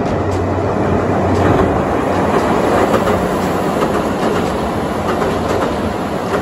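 KiHa 85 series diesel multiple unit crossing a steel girder railway bridge, its wheels clacking over the rail joints with a steady loud rumble.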